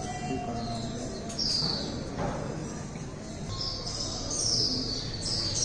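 Birds chirping: several short, high calls that fall in pitch, coming more often in the second half, over a steady hubbub.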